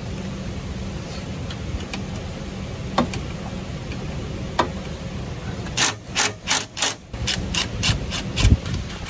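Cordless power ratchet run in a string of short trigger bursts, about three a second and quickening near the end, loosening a 10 mm nut on a cooler line fitting. Before the bursts there are a couple of single clicks.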